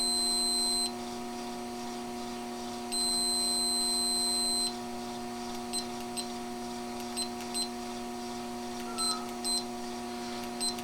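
Fluke multimeter continuity beeper sounding a high steady beep that stops about a second in, then a second beep of nearly two seconds, then a string of short chirps. The beep signals a complete circuit between the probes.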